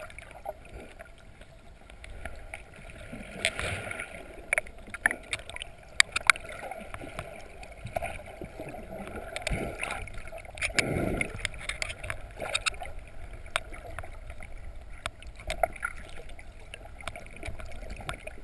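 Underwater sound picked up through a GoPro's waterproof housing: a muffled wash of water with many sharp clicks and knocks, the loudest about six seconds in. Low rushing swells come around four and eleven seconds.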